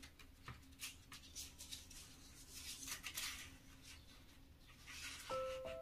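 Fresh zongzi leaves rustling and crackling softly as they are handled and folded into a cone. Short scrapes come irregularly over a faint steady hum. Near the end, a few bell-like music notes come in.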